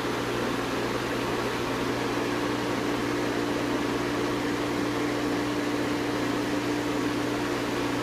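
Portable refrigerant recovery machine running with a steady hum, its compressor pulling the last R-134a vapor out of a disposable cylinder and drawing it down toward a vacuum.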